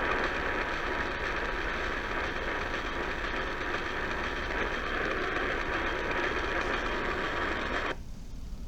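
Emergency Alert System two-tone attention signal (853 and 960 Hz together), steady and partly buried in heavy hiss from weak radio reception. The tone and the hiss cut off suddenly about eight seconds in.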